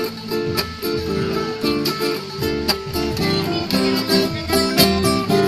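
Music: strummed and plucked acoustic guitar playing a steady rhythmic pattern.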